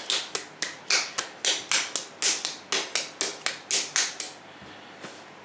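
Hand-pump trigger spray bottle squirted in a quick run of short hissing sprays, about four a second, stopping after about four seconds.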